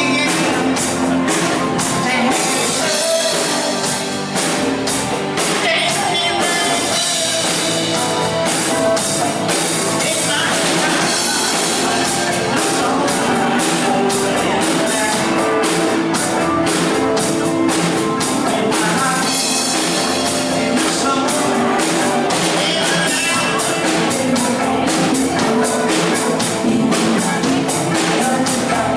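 Band rehearsing a pop-rock song with singing over a steady drum beat.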